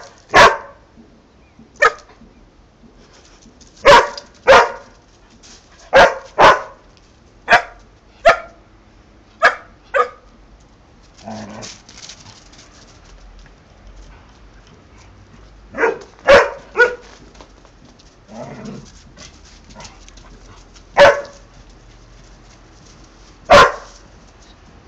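Rough Collie barking in play: loud, sharp single barks and quick pairs of barks, every second or two, with a few seconds' pause in the middle.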